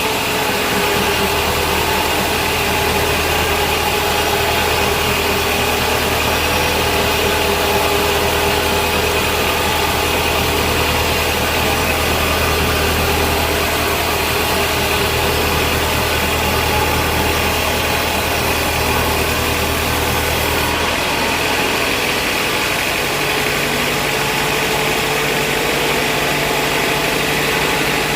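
Sawmill machinery, the vertical band saw and its drive, running with a steady drone. About 21 seconds in the low hum drops away and the tone shifts, as if the machine's load or speed changes.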